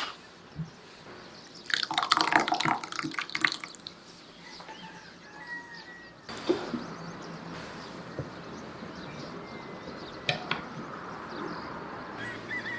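Thick, chunky tomato sauce pouring from a large glass jar into a glass bowl: a wet, splattering run of sounds lasting about two seconds, followed by a few scattered light knocks.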